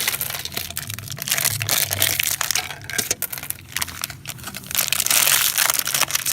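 Gumballs being dumped out of a plastic surprise container, with a dense rattle of many small clicks. Crinkling of plastic packaging joins in, busier in the second half.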